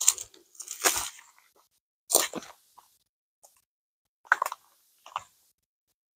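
Footsteps crunching on gritty rock, about five uneven steps.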